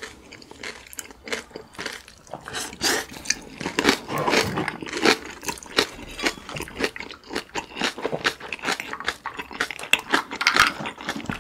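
Close-up chewing of kimchi-wrapped noodles: wet crunching of the fermented napa cabbage leaf with soft, squishy chewing of the noodles, in many short, irregular crunches.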